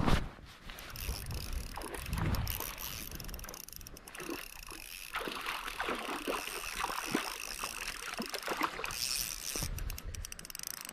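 A hooked lightning trout splashing at the water's surface as it is reeled in, in a run of short irregular splashes.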